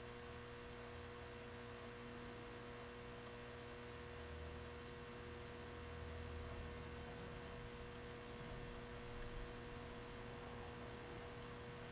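Faint steady electrical hum, a mid-pitched tone over a soft hiss, with a slight low rumble swelling briefly in the middle.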